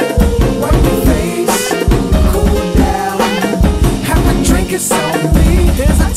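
Background music: a song with a steady beat and a strong bass.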